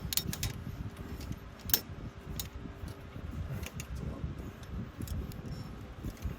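Metal tools and axle hardware clinking and tapping as they are handled: a scattering of sharp clicks with one louder clink a little under two seconds in. Low rustling handling noise runs under them.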